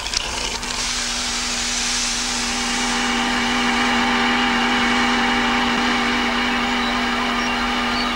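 Vacuum cleaner running: a steady motor hum over rushing air, building up in the first second and holding even.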